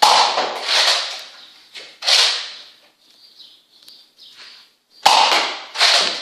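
Nerf Rival blaster firing foam balls: sharp pops, each with a hissing tail that fades quickly, at the start, about two seconds in, and twice more around five to six seconds.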